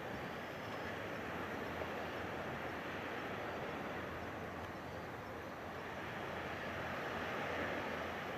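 Distant KiHa 48 diesel railcar train approaching along the line: a steady, even rumble and hiss that grows slightly louder near the end.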